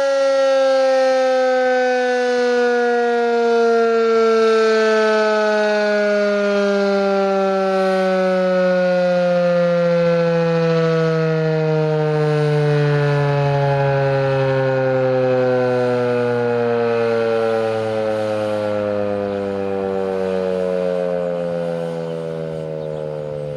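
Federal Signal 2001-SRNB battery-powered outdoor warning siren winding down. Its loud tone falls slowly and steadily in pitch and fades a little near the end.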